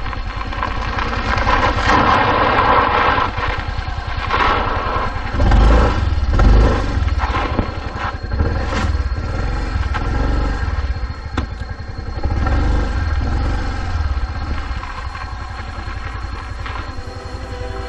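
Engine of a 125cc Yamaha Fillano scooter, a single-cylinder four-stroke, running as the scooter is ridden over a rough dirt track. There is a stronger low rumble about six seconds in.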